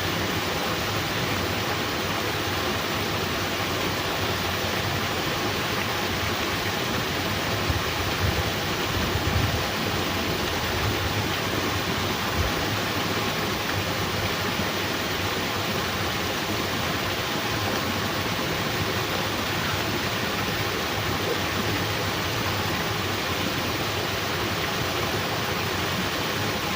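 Steady rushing water noise, even and unbroken, with a few soft low bumps around eight to ten seconds in.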